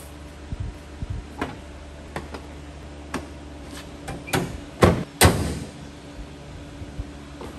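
Plastic front bumper cover of a Scion xD being pressed into place by hand: a series of short clicks and knocks, with the two loudest close together about two-thirds of the way through.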